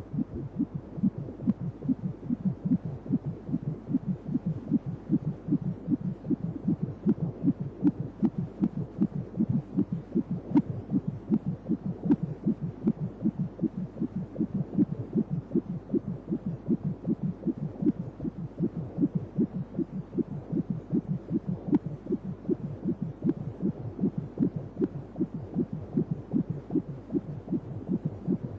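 Fetal heartbeat picked up by an ultrasound Doppler probe: fast, regular pulses that keep an even rhythm.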